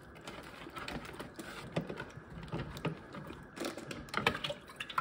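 Small, irregular clicks and knocks of hands stirring strawberries and blueberries in a plastic colander basket inside a bowl, the berries and fingers tapping against the plastic.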